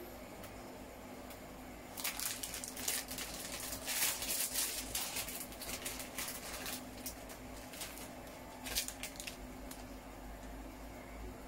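A plastic instant-noodle packet (Vifon Phở Bò) crinkling and crackling as it is handled and torn open. The crinkling is busiest in the middle stretch, with a few more crackles near the end, over a steady low hum.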